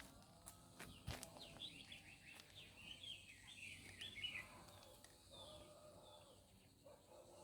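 Faint wild bird song in woodland: a quick run of high twittering chirps in the first half, then a few fainter calls.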